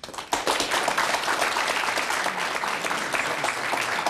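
Studio audience applauding: many hands clapping in a dense, steady patter that starts abruptly, in response to a correct answer.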